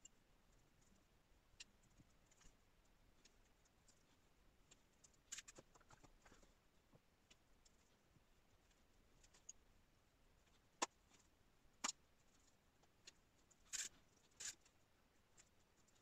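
Near silence broken by scattered faint clicks and light taps of small balsa strips and a glue applicator being handled and set down on a plastic-covered building board, with a short cluster about five seconds in and a few sharper ticks near the end.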